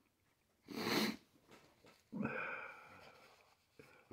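A man sniffing and breathing hard, his nose running from the burn of a ghost pepper. There is a sharp sniff about a second in, a long breathy exhale around two seconds in, and another sniff at the end.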